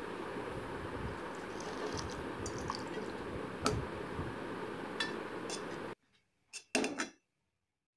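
A steel ladle stirring water into flour in an enamel bowl, clinking against the bowl a few times over a steady background hiss. The hiss cuts off sharply about six seconds in, and the loudest clinks come just after.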